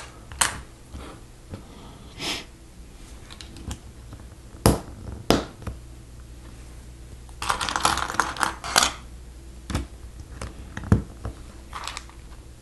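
Plastic Lego bricks clicking as they are pressed onto a model, single sharp snaps every second or two, with a short rattling clatter of plastic pieces being handled a little past halfway through.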